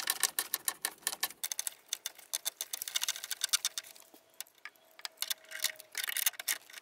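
Tongue-and-groove (channel-lock) pliers tightening the flare nuts on a mini split's refrigerant line connections: a run of quick, irregular small metallic clicks and ticks, with a short pause about four and a half seconds in.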